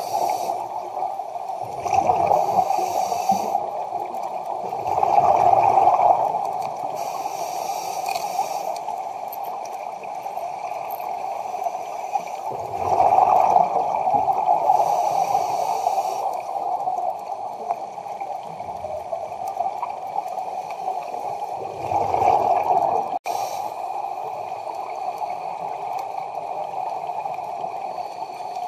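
Scuba divers breathing through their regulators, heard underwater: a hiss with each inhalation and a surge of gurgling exhaust bubbles every few seconds, over a steady muffled hum.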